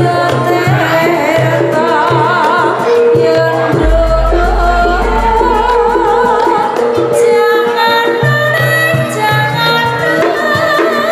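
Live Javanese gamelan music: a singer with a wavering vibrato over held metallophone tones and steady drum strokes. A deep low boom sounds about four seconds in and fades over nearly three seconds.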